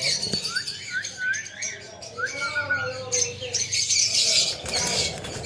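Pet parrot calling: a quick run of short rising whistled chirps, then a louder harsh squawk about three seconds in.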